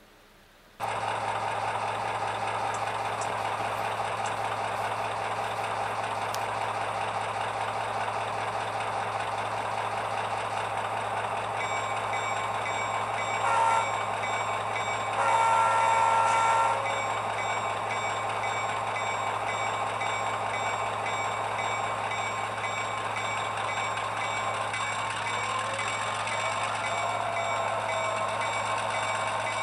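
Diesel switcher locomotive sound: the engine runs steadily, and about twelve seconds in a bell starts ringing in regular strokes. The horn gives a short blast and then a longer one of about a second and a half, and a faint tone slides up and down near the end.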